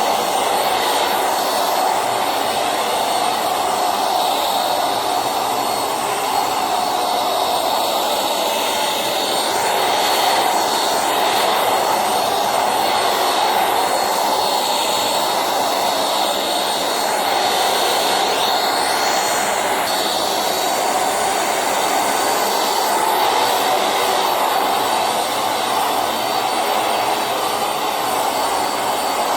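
Silvercrest anti-dust-mite handheld vacuum cleaner running steadily while cleaning a mattress: a continuous rush of suction air with a thin high whine from the motor.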